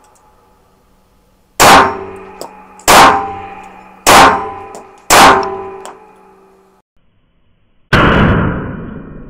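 AMT Automag II .22 Magnum (.22 WMR) semi-automatic pistol firing single shots in a steady string: four sharp reports about a second apart, each ringing on in the indoor range. A fifth shot follows near the end.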